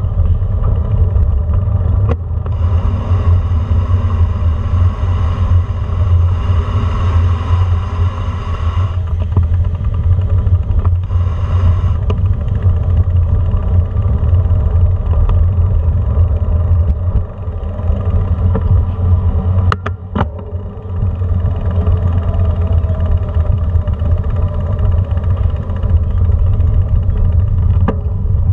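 Steady low rumble of a bicycle rolling over brick pavement, recorded from the handlebar, with a couple of brief clicks about two-thirds of the way through.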